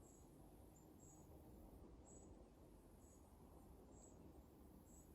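Near silence: faint outdoor ambience with a low rumble and a short, high chirp repeating about once a second.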